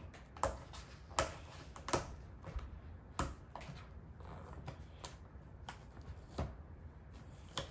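Fingers picking at and peeling tape off a cardboard box: scattered small clicks and crackles at irregular intervals.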